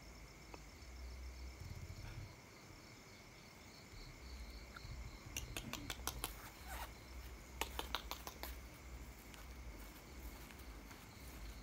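Night insects, crickets, calling steadily: one even, unbroken high tone and a faster pulsing trill above it. Around the middle comes a run of sharp clicks and knocks, the loudest sounds here, over a low rumble.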